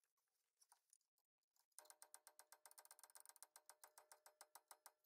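Cordless impact wrench running, a rapid even clatter of about a dozen blows a second over a steady motor whine. It starts about two seconds in and lasts about three seconds.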